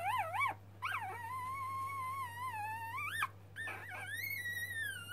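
Newborn cocker spaniel puppy crying: three short wavering high squeaks, then two long high-pitched cries, the second tailing off downward.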